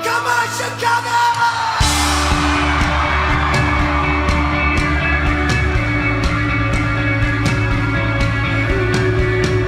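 Live rock band playing on stage. About two seconds in a cymbal crash lands and the bass and drums come in strongly, then the band plays on with a steady beat.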